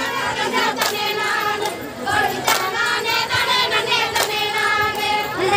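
Women's group singing a kummi folk song in chorus, with sharp, evenly spaced hand claps marking the beat of the dance.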